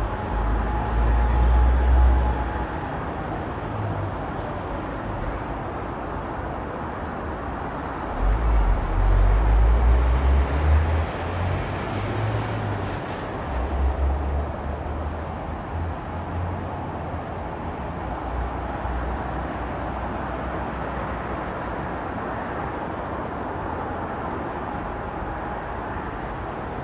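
Distant expressway traffic in a heavy jam, a steady road noise. A low rumble swells near the start and again from about 8 to 14 seconds in.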